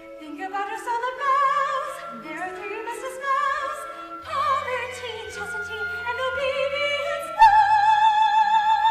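Operatic-style soprano singing with wide vibrato, in rising, swooping phrases over a steady sustained accompaniment. About seven and a half seconds in, the voice jumps to a loud high note and holds it.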